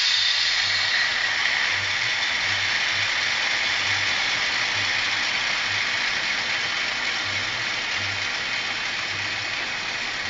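Sound decoder in a PIKO DF7C model locomotive playing its diesel engine sound through twin speakers: a steady hiss over a low, uneven throb, easing slightly toward the end.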